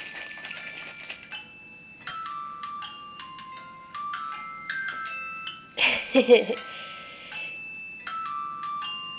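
Tinkling glockenspiel-like notes: a run of single bright tones at different pitches, each ringing briefly. A short child's vocal sound cuts in about six seconds in.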